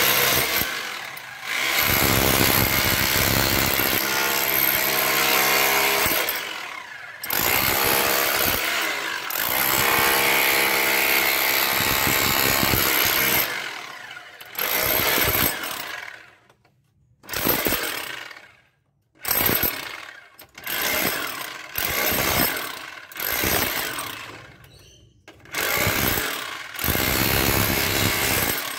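Electric chipping hammer chiselling into brick and mortar. It runs in long stretches at first, then from about halfway in short bursts of about a second each, separated by brief pauses.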